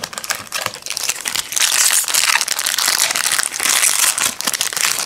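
A foil trading-card pack wrapper crinkling as it is handled and opened. The sound is a dense run of crackles, soft at first and louder from about a second and a half in.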